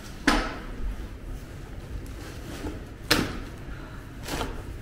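Three sharp knocks with a short ringing tail: one just after the start, a louder one about three seconds in, and one just past four seconds.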